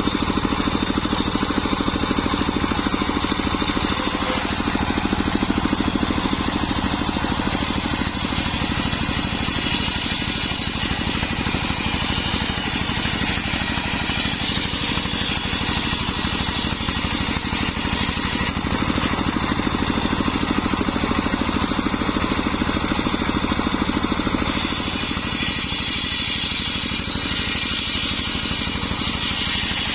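Home-built circular saw running steadily while ripping sengon wood: a low drone from its drive with the blade's higher whine on top, which changes several times as the blade moves into and out of the wood.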